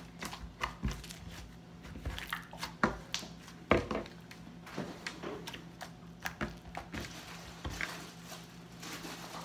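Homemade slime being kneaded, stretched and pressed by hand on a wooden tabletop: irregular squishy clicks and soft knocks, with a faint steady low hum underneath.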